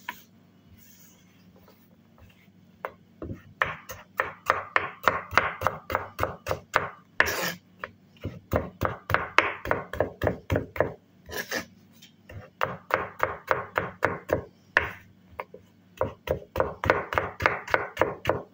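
Chef's knife dicing raw potato on a cutting board: rapid, even chops, about three or four a second, starting about three seconds in and breaking off briefly a few times, with a few longer, harsher strokes in between.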